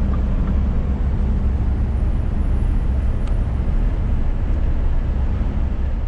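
Steady in-cab noise of a Scania S500 truck driving at highway speed on a snowy road: a low engine and tyre drone with an even rush of road and wind noise.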